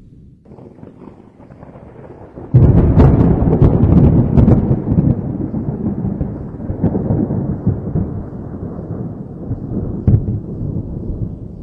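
Thunder: a low rumble builds, then a sudden loud crack about two and a half seconds in rolls on and slowly fades. A second, sharper crack comes near the end.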